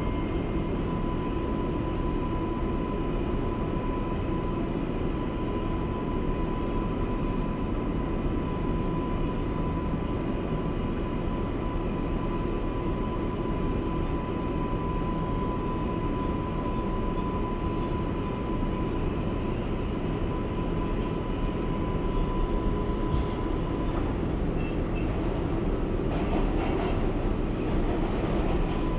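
Interior of an R188 subway car running along the track: a steady rumble and rail noise with a constant thin high tone. A few faint clicks come near the end.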